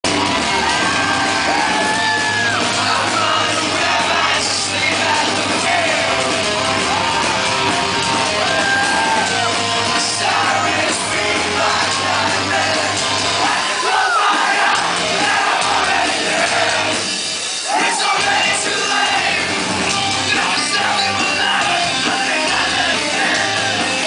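Rock band playing live in a large hall, heard from within the audience, with a male singer singing and shouting into the microphone over the band. The low end drops out briefly twice, about two-thirds of the way through.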